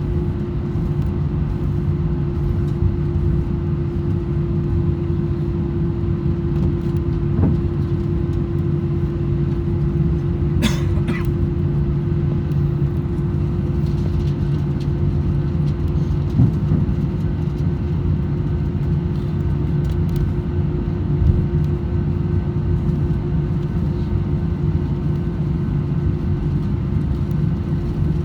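Cabin noise of an Airbus A321-200 taxiing after landing: a steady drone with a constant hum from the engines at idle and the air system. A couple of short clicks or creaks about ten to eleven seconds in.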